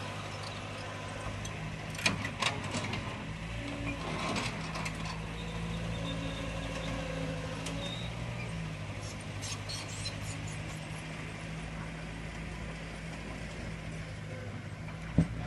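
Diesel engine of a tracked earthmoving machine running steadily, with a few sharp knocks and clanks: a cluster a couple of seconds in and one near the end.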